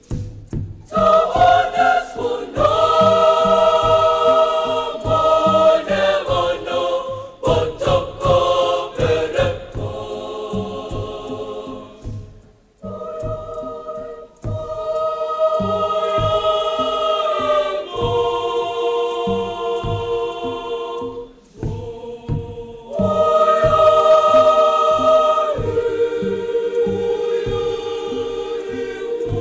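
Girls' school choir singing a choral piece in parts, holding long chords with brief breaks between phrases.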